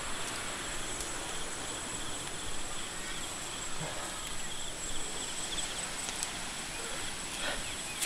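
Insects singing steadily: one high, even whine with a rapid pulsing trill below it, over a faint outdoor hiss.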